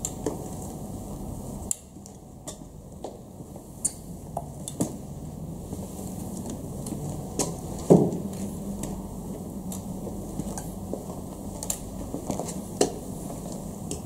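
Scattered clicks, taps and squeaks of work shoes and a flat mop on a glossy tile floor, with one heavier thump about eight seconds in, over a faint steady low hum.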